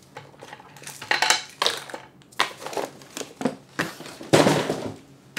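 Small accessories (AAA batteries, a USB cable and a small packet) being picked up and moved off the glass top of a bathroom scale: a run of clicks and clatters with rustling, the loudest and longest rustle about four and a half seconds in.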